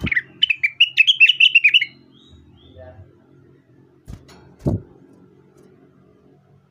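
Rengganis (cucak wilis) songbird singing a fast run of about a dozen chirping notes for two seconds, then falling silent. A dull knock or two follows near the middle.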